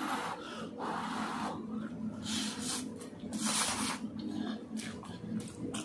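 A man slurping and chewing masala Maggi instant noodles: a series of short hissing slurps and breaths, about one a second, over a low steady hum.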